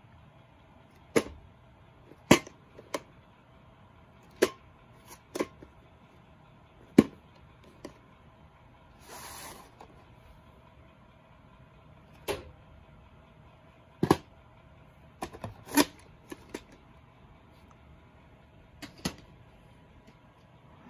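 Plastic VHS clamshell case being handled and opened: irregular sharp clicks and taps as the case and cassette are moved, with a short rustling scrape about nine seconds in.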